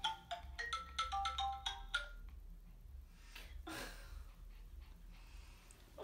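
Phone alarm ringing: a quick repeating marimba-like melody that stops about two seconds in. A soft rustle of bedding follows.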